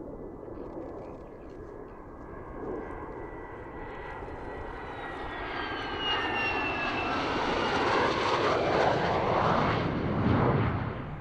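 F-16 fighter jet's single turbofan engine as the jet flies past low on landing approach, gear down: a rush of jet noise that swells steadily. High whine tones slide down in pitch as it goes by. It is loudest near the end, then falls off abruptly.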